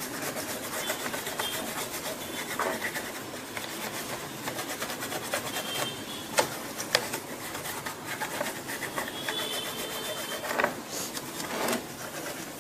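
Toothbrush scrubbing a laptop motherboard: continuous fine, scratchy bristle rubbing, with a few sharper clicks about six and seven seconds in.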